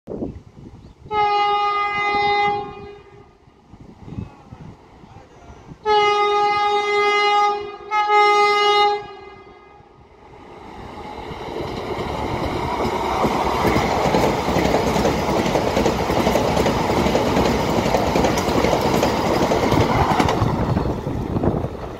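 Vande Bharat Express electric trainset sounding its horn as it approaches: a long blast, then a second long blast and a shorter third one in quick succession. It then runs past at speed, a loud rush of wheels and air along the coaches that builds up and cuts away near the end as the train clears.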